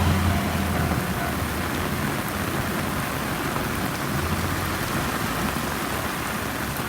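Rain falling steadily. A low rumble from the departing diesel railcar fades out over the first second or so.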